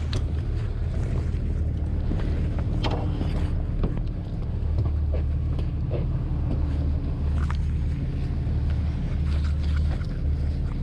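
Small fishing boat's engine running with a steady low drone. Scattered short knocks and clatter come from the deck as the net is hauled in by hand.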